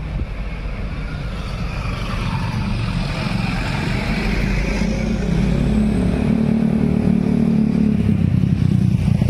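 Road traffic passing close by: a light truck's engine goes past in the first few seconds, then motorcycle and car engines come closer, their low pulsing drone getting steadily louder toward the end.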